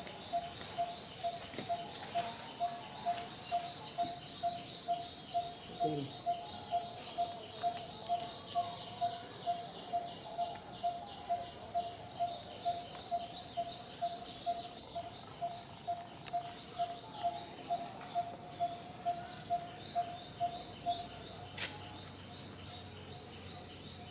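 A bird calling one short, hollow note over and over at an even pace, about twice a second, until it stops near the end. Fainter, faster high chirping runs behind it.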